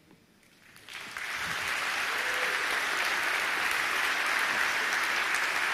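Audience applause at the end of a talk, starting about a second in, quickly swelling to steady, dense clapping from a large crowd.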